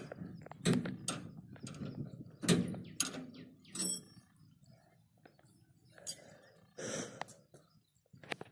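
Irregular metal clanks and clicks from the drive chain and sprocket at the end of a combine harvester's header reel being worked by hand, one ringing briefly about four seconds in. The chain adjustment is jammed with rust.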